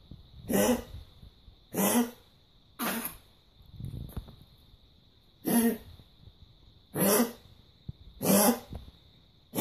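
Small dog giving a series of about seven goose-honk coughs, roughly one every second or so, the fourth weaker than the rest. This honking cough is the characteristic clinical sign of tracheal collapse.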